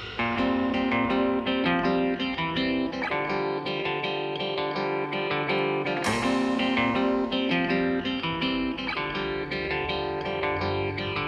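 Background music led by a plucked guitar, playing a run of picked notes without drums.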